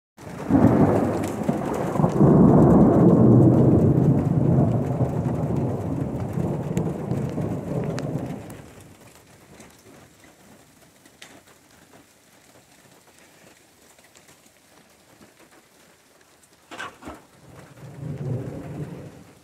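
Rolling thunder: a long low rumble that starts suddenly, swells over the first few seconds and dies away after about eight seconds. Near the end there is a short sharp noise, then a second, shorter rumble.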